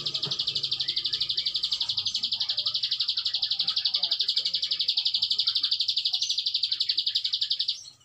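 Prenjak alang-alang songbird singing its 'ngebren' song: one long, unbroken high trill of rapid, even pulses, about a dozen a second, that stops shortly before the end.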